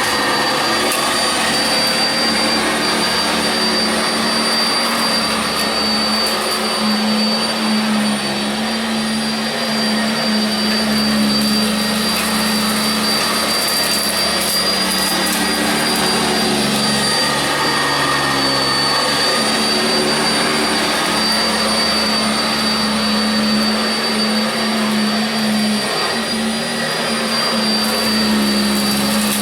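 Sanitaire SC679j upright vacuum running steadily on carpet, its motor hum wavering slightly as it is pushed back and forth.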